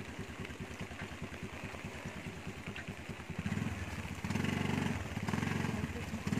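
A motor scooter's small engine putters at a fast, even beat. From about halfway through it is revved in repeated bursts of under a second each, while the scooter is stuck in deep mud.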